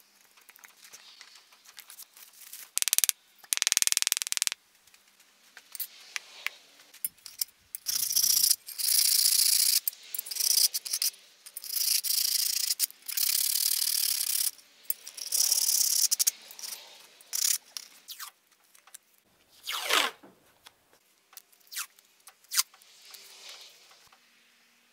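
Workshop handling sounds: scraping and rubbing, then a run of hissy rasping strokes about a second long each, and a sharp falling sweep about twenty seconds in.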